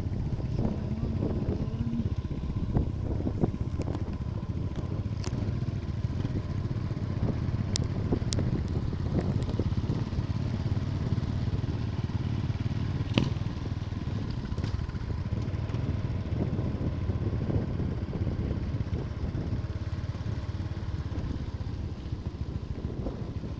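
Motorcycle engine running steadily, heard from the rider's own bike, with a constant low rumble and scattered clicks and rattles from the rough dirt road.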